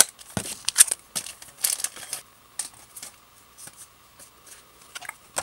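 Foil Pokémon card booster pack being torn open and its wrapper crinkled by hand: a run of short, sharp crackles, thick for the first two seconds, then sparser.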